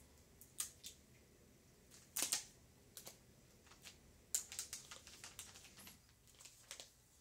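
Faint scattered clicks and crinkling as new phones and their packaging are handled, with the loudest rustle about two seconds in and a sharp click a little after four seconds.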